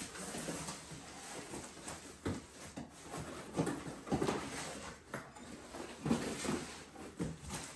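Cardboard packaging being opened and handled: irregular rustling and scraping of box flaps and packing, louder in bursts about two, three and a half, four and six seconds in.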